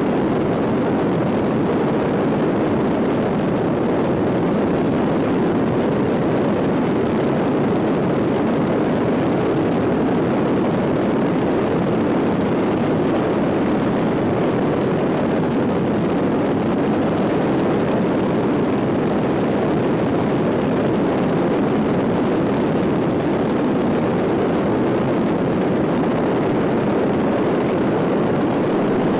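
Boeing Stearman biplane in cruising flight, heard from the open cockpit: the steady drone of its radial engine and propeller mixed with the rush of the slipstream, unchanging throughout.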